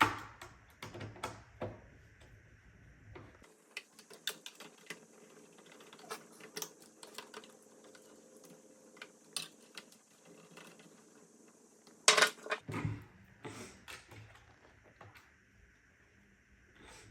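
Irregular light clicking and tapping of a Roomba's plastic parts being handled and fitted during reassembly, with a louder cluster of clicks about 12 seconds in.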